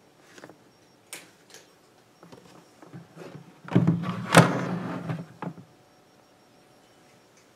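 Handling noise: a few light clicks, then about three seconds of rubbing and shuffling with two sharp knocks near the middle.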